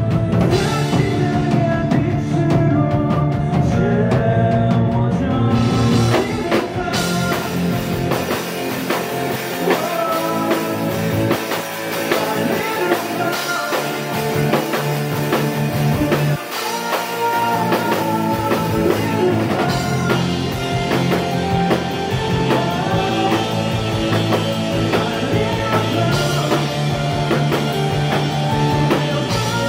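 Live rock band playing a song: male lead vocal over electric guitar and a drum kit, with the high end filling out about seven seconds in.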